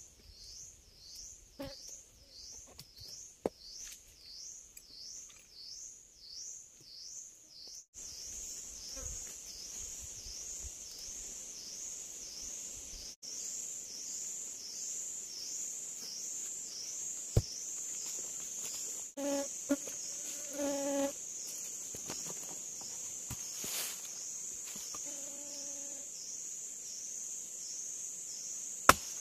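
Insects calling in the forest: a high, pulsing chorus that swells about one and a half times a second and grows louder from about eight seconds in. A few sharp knocks cut through it, one near the end.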